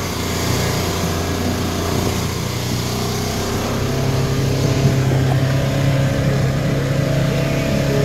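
Polaris Ranger side-by-side's engine running steadily as it drives along a dirt track, with wind and tyre noise. The engine grows a little louder about halfway through.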